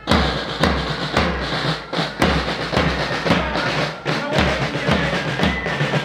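Marching band drums, bass drum and snare drums, beating a steady march rhythm of about two beats a second. From about halfway in, a high melody from the band's wind instruments joins them.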